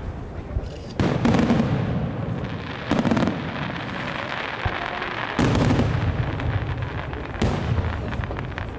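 Aerial firework shells bursting overhead: four loud booms about two seconds apart, each trailing off in a long echo, with crackling between them.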